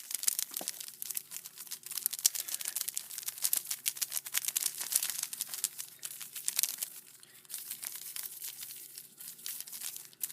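A 16-pack of Black Cat firecrackers being shaken hard by its fuse, the paper-wrapped crackers rustling and crinkling in fast crackles that thin out about seven seconds in.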